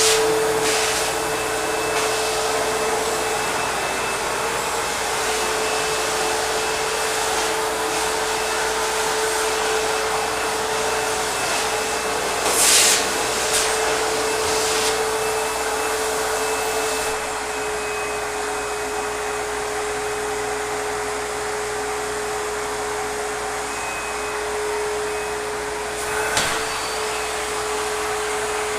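ProTeam backpack vacuum cleaner running steadily, its motor giving a steady whine over the airflow noise, with a brief louder burst about 13 seconds in and a short click near the end.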